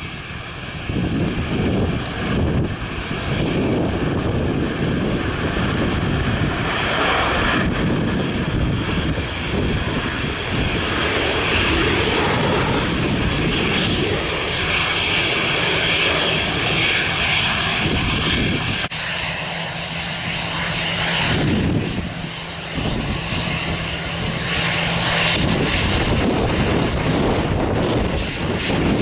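Airbus A319-100's twin jet engines running at low taxi power: a steady whine over a low rumble. The low rumble drops away abruptly about two-thirds of the way through.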